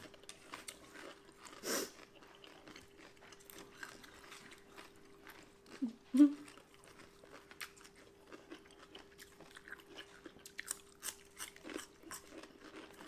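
Close-up chewing of mouthfuls of sliced pickled ginger: soft crunches and small wet mouth clicks scattered throughout, with a couple of brief hummed "mm" sounds, over a faint steady hum.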